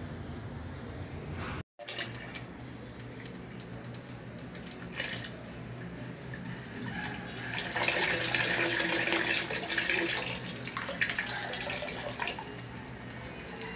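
Water running out of a PVC water line under test pressure and splashing into a container below, louder and splashier for several seconds past the middle.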